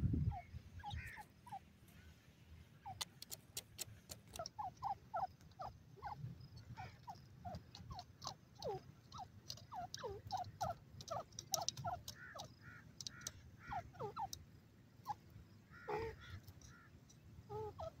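Grey francolin giving short, downward-sliding call notes in irregular runs of several a second, with scattered sharp clicks between them.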